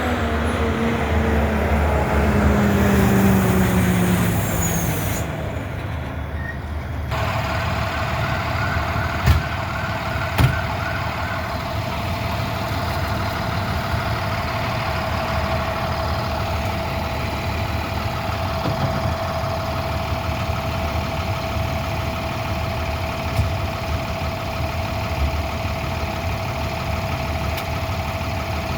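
Fire truck engine idling: a steady low rumble with a constant high whine over it. At the start, a pitched tone slides downward and fades out, and two sharp knocks sound about nine and ten seconds in.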